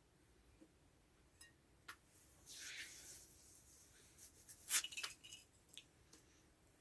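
Scattered light clicks and clinks of kittens at a food dish, with a brief rustle about two and a half seconds in and the sharpest clink a little before five seconds.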